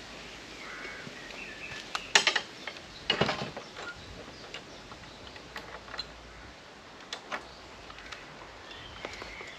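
Irregular footsteps crunching on the woodland floor, a few louder snaps among them, with faint birdsong.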